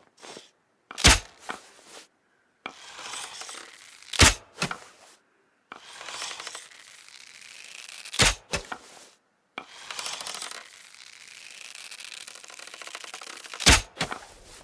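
Bow and arrow sound effect, repeated four times: a few seconds of scraping hiss, then a sharp crack, then one or two lighter clicks.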